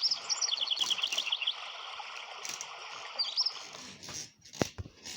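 Flowing river water with small birds chirping over it: a quick run of chirps in the first second and a half and another brief call at about three seconds. The water cuts off at about four seconds, and a couple of sharp clicks follow.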